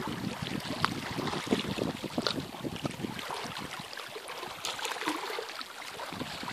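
Small lake waves lapping and splashing against the side of a boat in irregular little slaps, with light wind on the microphone.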